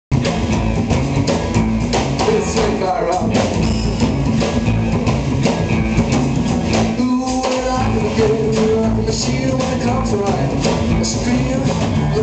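A live rockabilly trio plays: an upright double bass, an electric guitar and a drum kit, with a steady driving beat.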